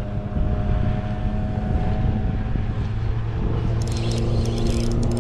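Steady hum of a boat motor with several even tones, its pitch pattern shifting about three and a half seconds in. Near the end there is a run of light clicks and rattles as a spinning rod is cast.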